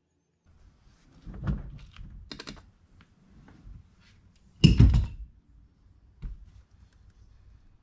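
Knocks, thumps and light clicks from someone handling the steering wheel and moving around in a car's driver's seat, with one heavy thump about five seconds in.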